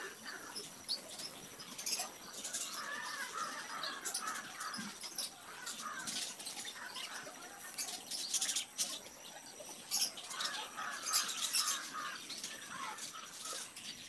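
Woodless charcoal pencil scratching on paper in many short, irregular sketching strokes.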